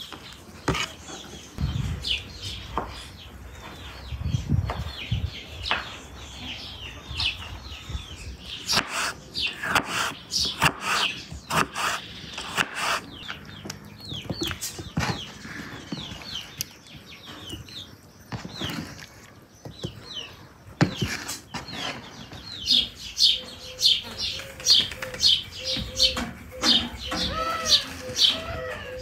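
Small birds chirping and calling, in a run of quick repeated chirps near the end. In the first seconds a knife cuts through tomatoes on a wooden board with dull knocks.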